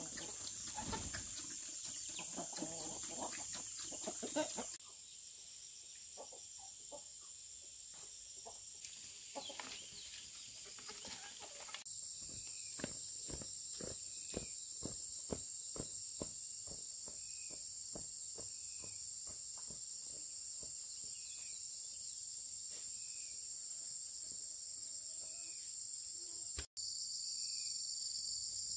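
Chickens clucking over a steady high drone of insects, with a run of sharp, regular knocks in the middle.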